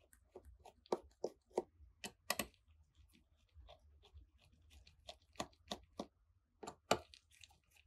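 Precision Phillips screwdriver working tiny screws out of the metal frame inside a Samsung Galaxy S20: light, irregular clicks and ticks of the bit on the screws and plates, with a few sharper clicks standing out.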